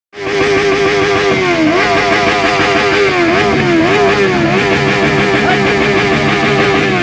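Benelli 600i's inline-four engine running at a steady, fairly high rev, loud from just after the start, with a few brief dips in pitch that pick straight back up.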